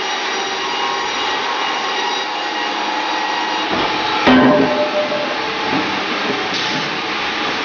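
Sawmill machinery running steadily as chain conveyors and powered rollers move sawn timber, with one heavy wooden knock about four seconds in as a sawn board drops away from the log onto the rollers.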